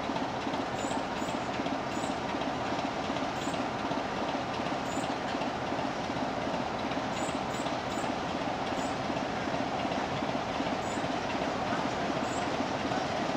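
Diesel locomotive engine running steadily, heard from down the platform.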